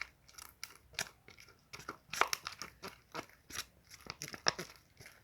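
Homemade slime of glue, baking soda and boric acid water being stirred in a cup, giving irregular sticky clicks and crackles, roughly two a second. The slime is being worked until it firms up and comes away from the cup.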